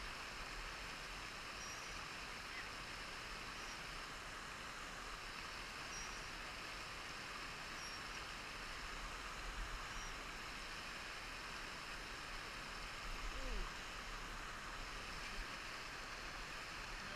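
Steady rush of a hill stream running over rocks. One short falling whine about 13 seconds in.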